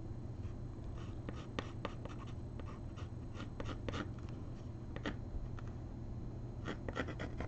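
White charcoal pencil sketching on a wood panel: short, irregular scratching strokes of the pencil tip, over a low steady hum.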